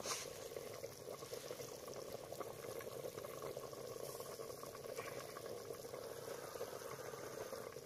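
Potatoes frying in a large pot of hot oil over a fire, a steady bubbling sizzle.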